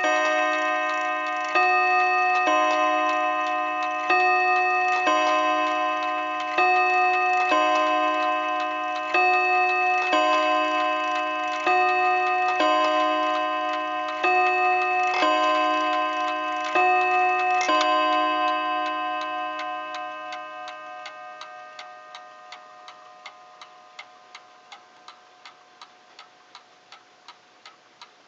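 New Haven Harmonic antique clock striking the hour on its double rod chime. Each blow is a two-tone 'bim-bam' pair, one pair about every two and a half seconds, with bell-like tones ringing on between them. After the last pair, a little over halfway through, the ring fades away and the movement's steady ticking is left.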